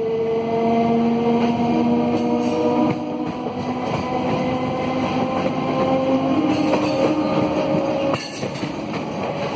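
MEMU electric multiple unit accelerating: the traction motors' whine climbs steadily in pitch as the train gathers speed, over the rumble of its wheels on the rails.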